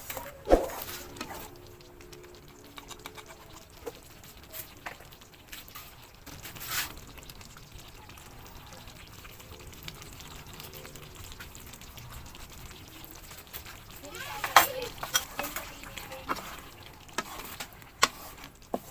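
Spoon or ladle stirring a pot of pork caldereta stew, with scattered knocks against the pot; the loudest knock comes about fourteen and a half seconds in.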